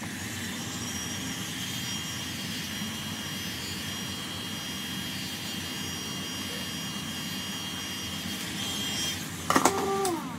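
Small handheld heat gun blowing steadily with a high whine, warming the iPad Pro 10.5 screen to soften the display adhesive. Near the end it stops with a few loud clicks and a falling whine.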